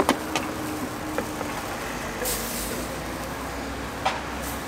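Street traffic hum with a short hiss a little past two seconds in. A few sharp clicks of utensils at the crepe griddle come just after the start and again about four seconds in, as the wooden spreader is brought onto the griddle.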